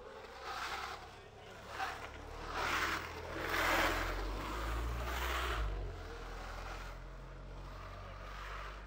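An engine running steadily, louder for a few seconds in the middle, with several bursts of rushing noise over it.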